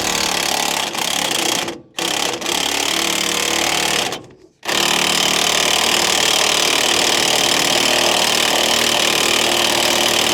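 Impact wrench hammering at the Land Rover's leaf spring bolts, run in three bursts, the last and longest about 6 seconds.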